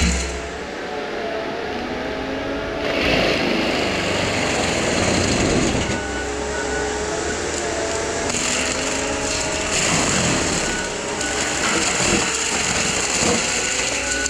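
Case skid steer engine and Shearex mulching head running hard, chewing through brush. The engine pitch wavers, and the sound grows louder and hissier twice, about three and eight seconds in, as the head bites into material.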